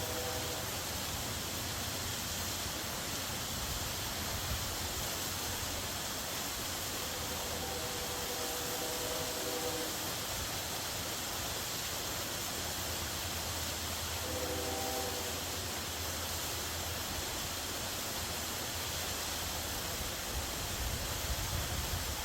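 Waterfall rushing steadily. A distant horn chord sounds over it, with one long blast about a third of the way in and a shorter one past the middle.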